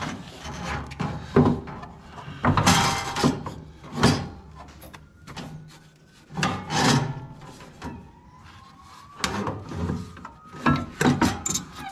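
Fan shroud being worked back into place around a skid steer's radiator fan: irregular knocks, bumps and scraping as it rubs against the radiator and fan guard.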